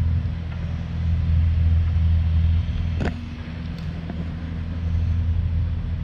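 An engine running steadily at a constant speed, with a single sharp click about three seconds in.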